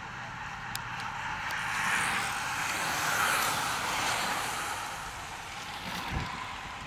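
A bunch of road racing bicycles sweeping past at speed: a rush of tyre and wind noise that swells over the first three seconds and then fades.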